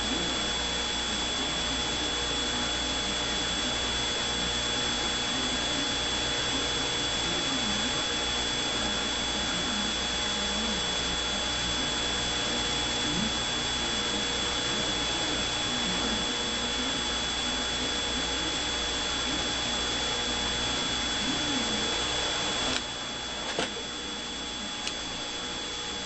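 A steady machine whir with a thin, high, constant whine, which drops in level suddenly about three seconds before the end. A few faint clicks follow.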